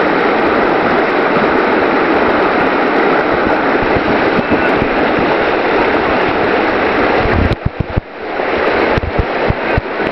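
Rushing whitewater of a class 2–3 river rapid, the hydraulic in the main current churning steadily. About three-quarters through the water sound dips for a moment, and low thumps of wind hit the microphone.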